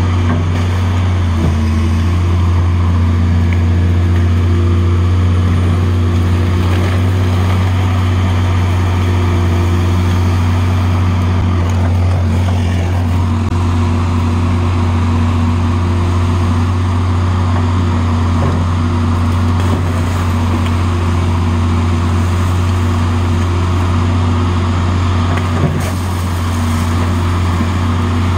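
Amphibex amphibious ice-breaking excavator's engine running at a steady, even speed, a constant low drone while its hydraulic digger arm works the bucket in the ice.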